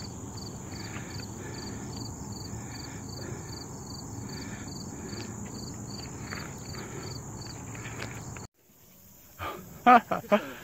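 Insects chirping in late-summer brush: a steady high trill with a higher chirp pulsing about three times a second. The chirping stops abruptly near the end, followed by a few short loud sounds.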